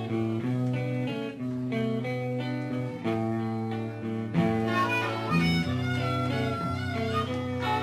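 Intro music led by guitar, with a wavering higher lead line coming in about halfway through.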